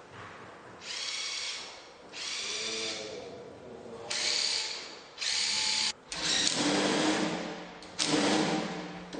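A cordless power driver running in about six short bursts of a second or so each, the later bursts louder.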